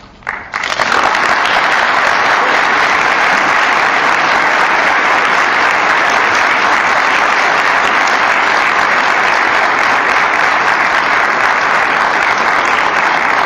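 Audience applauding: dense, steady clapping that starts about half a second in and keeps up without letting up.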